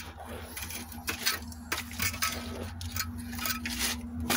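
Damaged 1500 mAh 6S lithium-polymer drone battery venting thick smoke without catching fire. It gives off irregular sharp crackles and pops throughout, over a steady low hum.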